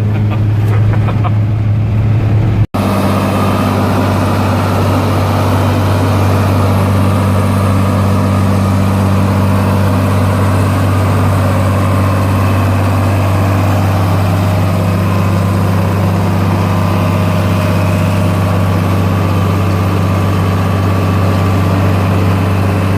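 Engine running steadily at constant speed, with a brief cut in the sound about three seconds in.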